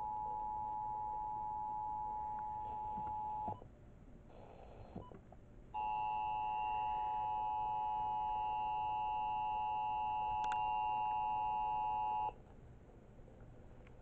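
Emergency Alert System test tones from a weather-alert radio's FM speaker. The steady two-tone EAS attention signal holds for about three and a half seconds and cuts off. After a short pause with a brief crackle, a second, richer steady alert tone sounds for about six and a half seconds and stops, ahead of the spoken test announcement.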